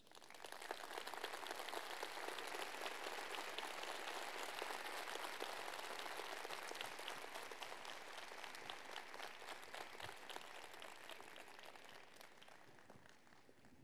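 Audience applauding: many hands clapping, swelling up in the first second and fading away over the last two seconds.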